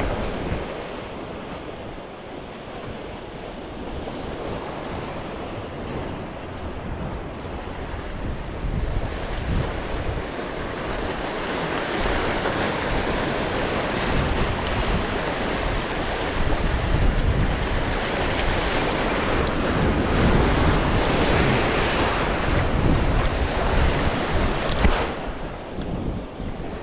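Wind gusting across the microphone over the steady rush of sea surf, swelling from about a third of the way in and easing briefly near the end.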